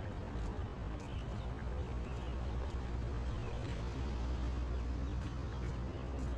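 Outdoor street ambience while walking along a paved path: a steady low rumble with faint footstep-like ticks scattered through.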